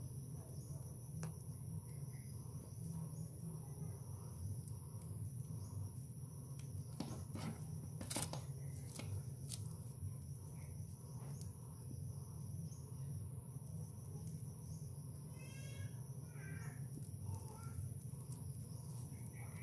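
Steady low background hum with a faint, steady high-pitched whine, and a few light clicks about seven to nine seconds in as three-strand rope is worked by hand into a back splice.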